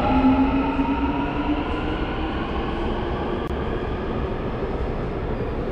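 Daegu Metro Line 2 electric subway train running beside the platform. Its motor whine rises slightly over the first second or two, then gives way to a steady rumble.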